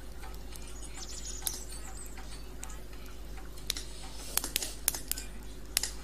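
Wood campfire crackling: sharp pops over a steady low hiss, coming more thickly in the second half.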